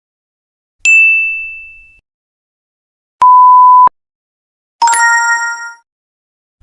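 A run of separate sound-effect clips with silence between them: a single bright bell ding that fades out, then a steady beep that starts and stops abruptly, then a ringing chime with several tones.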